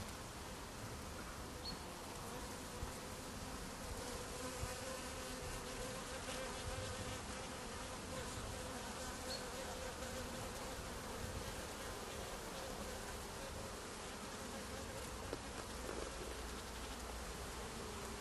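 Honeybees buzzing as they fly in and out at a hive entrance: a steady hum of many wings.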